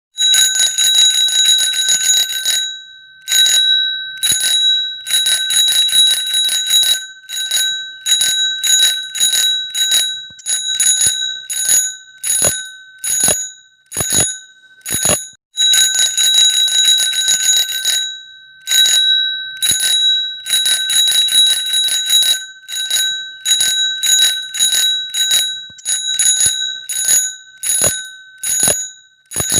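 Bicycle bell being rung over and over with a clear, high ring. It comes in rapid trills of strikes lasting a second or two, for example at the start and again around halfway, alternating with short clusters of a few dings and brief pauses.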